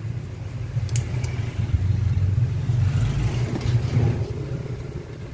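Steady low, engine-like rumble in the background, with faint clicks and light scrubbing as a swab cleans the flyback transformer's casing about midway.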